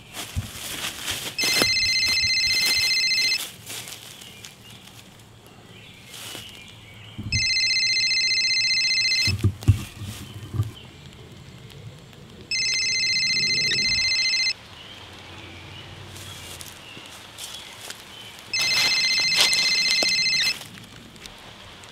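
Cell phone ringing: four electronic rings of about two seconds each, three to five seconds apart. Rustling and a few low knocks are heard between the rings.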